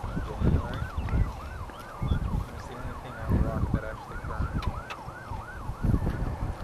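An electronic siren sounding in a fast yelp, its pitch sweeping up and down about three times a second, with low rumbles underneath.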